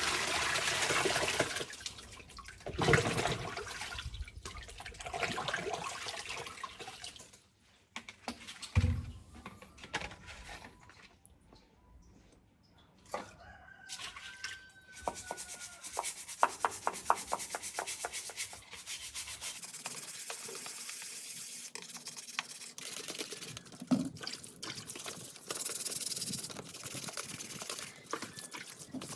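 Water running and splashing while parts are scrubbed by hand, coming and going with short pauses and a run of quick rubbing strokes.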